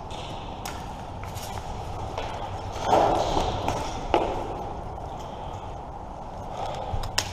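An airsoft player moving: footsteps and gear rustling, with a louder scuffing burst about three seconds in and a few sharp clicks.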